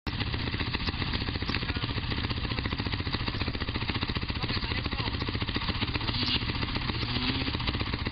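Enduro dirt-bike engines idling together at close range, a steady, even engine beat.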